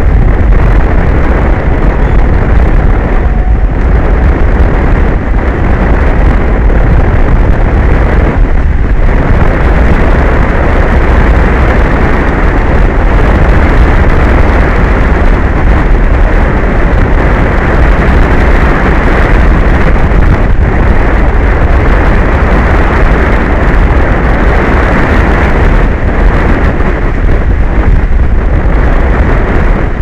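Wind blowing hard across an exposed microphone: a loud, steady rush of noise, overloading the recording, with no let-up.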